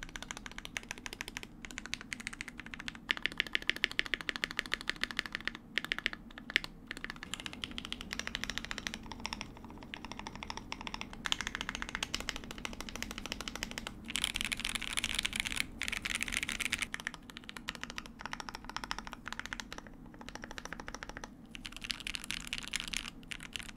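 Mechanical keyboard with lubed linear switches being typed on fast, a dense run of key clacks in bursts with short pauses between them.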